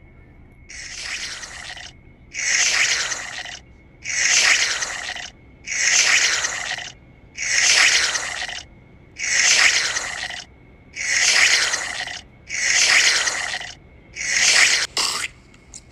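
A rhythmic rasping scrape repeated nine times, each stroke about a second long with short pauses between.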